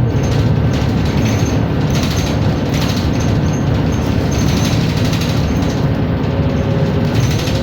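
New Flyer XN60 articulated natural-gas bus running, with steady drivetrain and road noise. A whining tone from the transmission, the unusual sound the bus is known for, drops away at the start and comes back rising in pitch near the end.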